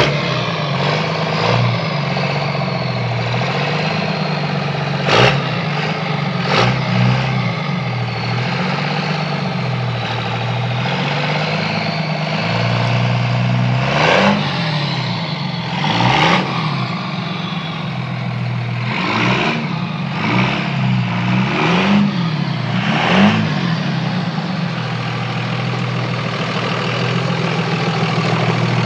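2002 Dodge Ram 2500's Cummins turbo-diesel engine, exhausting through bed-mounted stacks, running as the pickup drives around slowly. Its pitch rises and falls with several short blips of throttle, mostly in the second half.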